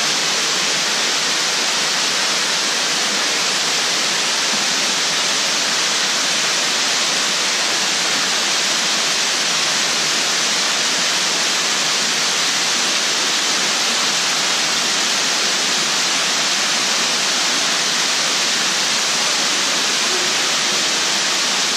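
Underground waterfall in a cave pouring into a pool: a steady, unbroken rush of falling water.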